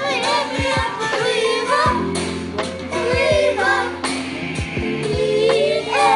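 A pop song with a woman singing over a steady beat.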